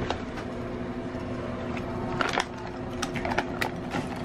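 Small metal whisk clicking and scraping against a plastic tint bowl while mixing hair bleach powder into developer, with irregular clicks mostly in the second half. A steady low hum runs underneath.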